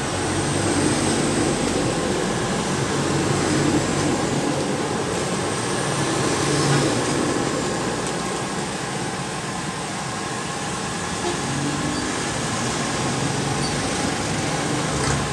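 Road traffic passing close by on a highway: a heavy truck and motor tricycles driving past, engines running and tyres on the road, swelling and fading as each goes by.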